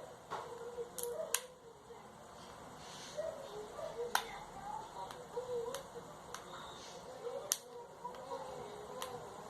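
Handling of small parts and tools during a bulb repair: about six sharp clicks at irregular intervals, over faint wavering sounds in the background.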